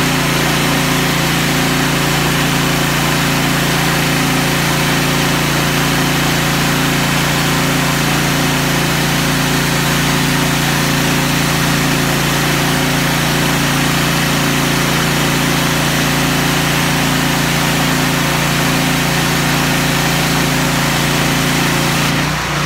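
Engine and pump of a hot-water pressure washer running at a steady speed. Near the end the engine is switched off and begins to wind down.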